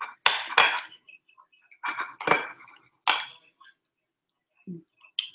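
Steel knife and fork scraping and clinking against a plate while cutting steak: several sharp, ringing strokes in short clusters, the loudest in the first second and around two to three seconds in.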